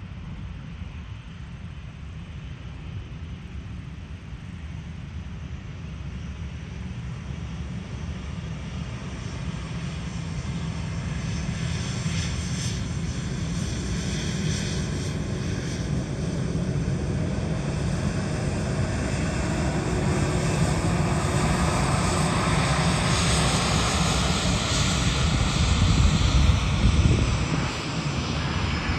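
Boeing 717-200's two rear-mounted Rolls-Royce BR715 turbofans on landing approach, growing steadily louder as the jet comes near. A whine falls in pitch as it passes, with the loudest moment near the end.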